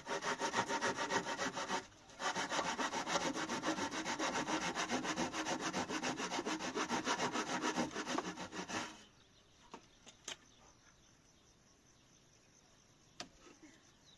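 Wood being cut with a hand saw in fast, even back-and-forth strokes, with a brief pause about two seconds in. The sawing stops about nine seconds in, and a few faint knocks follow.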